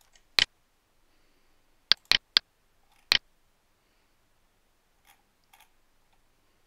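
Computer mouse clicking: about six sharp clicks in the first three seconds, some in quick pairs and triplets, then two fainter clicks around five seconds in.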